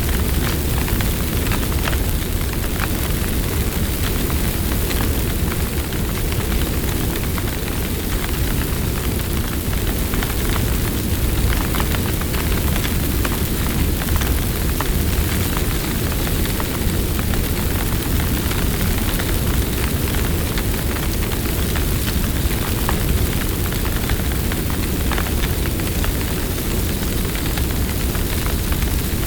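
Large wildfire burning close by: a steady low rumble of flame under dense, continuous crackling and popping.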